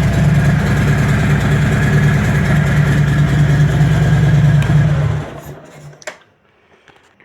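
Harley-Davidson Milwaukee-Eight V-twin with a Vance & Hines Power Duals exhaust idling steadily, then switched off about five seconds in. A single click follows in the quiet.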